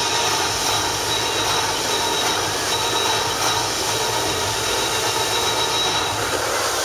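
Steady loud rush of many high-pressure fountain jets and mist screens spraying, under sustained, held notes of the show's soundtrack music.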